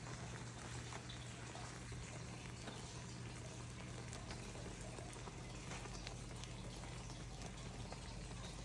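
Faint sizzling and crackling of egg cooking in a hot nonstick frying pan, many small ticks over a steady hiss, with a steady low hum underneath.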